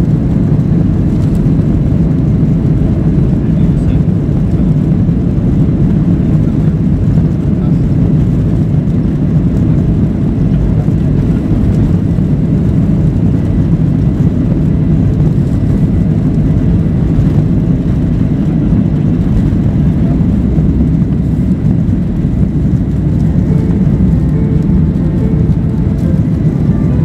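Boeing 737-800 cabin noise during the takeoff roll and climb-out, heard from a window seat over the wing: the CFM56 engines at takeoff power make a loud, steady rumble. A few faint steady tones come in near the end as the aircraft climbs away.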